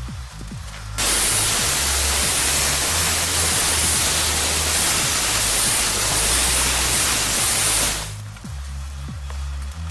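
Background music with a stepping bass line, overlaid by a loud, steady hiss that cuts in suddenly about a second in and fades out about seven seconds later.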